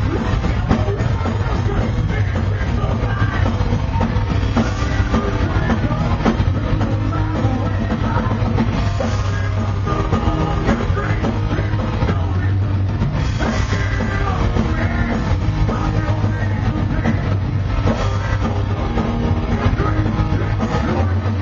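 Metal band playing live: distorted electric guitars and bass over a drum kit, with vocals into a microphone. Crash cymbal hits come about every four to five seconds.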